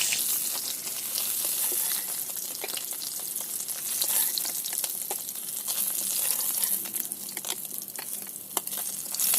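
Small parshe fish frying in hot oil in a pan: a steady sizzle full of fine crackles and spits, as the fish finish frying and are lifted out.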